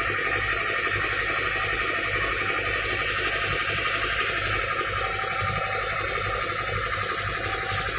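An engine running steadily with a fast, even beat.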